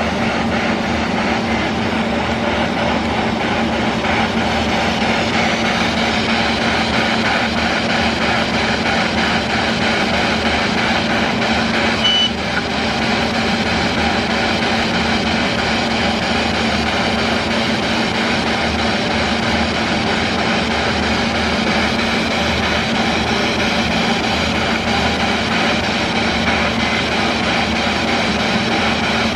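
Spirit box sweeping through radio frequencies: a continuous loud wash of static with a steady hum underneath, and one short high beep about twelve seconds in.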